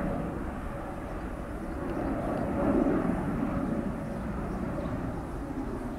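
Jet engine noise of a Boeing 787-8 climbing after takeoff, from its GE GEnx-1B turbofans: a low, distant rush with a faint steady hum. It swells about halfway through, then slowly fades.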